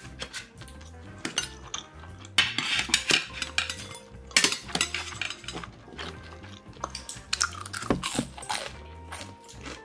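Metal chopsticks clicking and clinking against stainless-steel bowls and a metal tray in irregular sharp taps.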